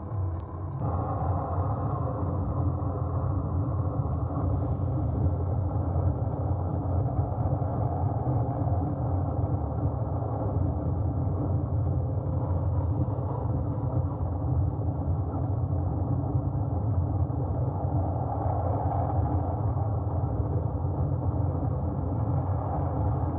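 Steady engine and road rumble inside a moving vehicle's cab at highway speed. It steps up slightly just under a second in and then holds even.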